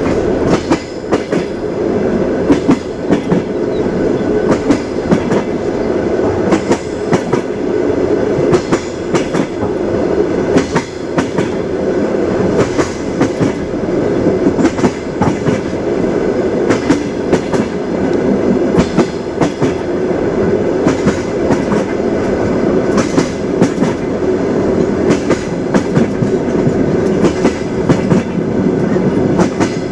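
Train wheels clattering over rail joints, the clickety-clack of a moving railway carriage: a steady rolling rumble with many sharp knocks throughout.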